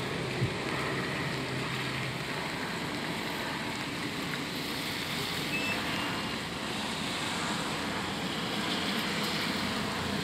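Steady jet engine roar of an Airbus A319 airliner climbing away overhead.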